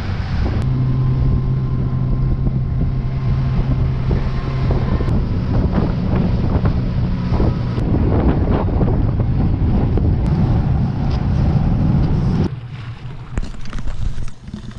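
Speedboat engine running at a steady hum under wind buffeting the microphone; about five seconds in, this gives way to a rougher rush of wind and water as the tube is towed across the lake. Near the end the level drops suddenly.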